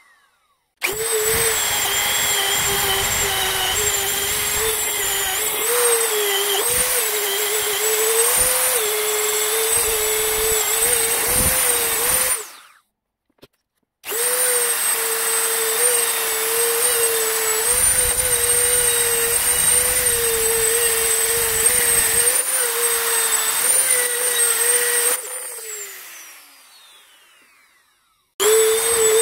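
Handheld high-speed rotary tool running and working against the metal body of a carbon-clogged EGR valve, its whine wavering as the bit loads up. It stops briefly about halfway, starts again, then spins down with a falling whine and restarts just before the end.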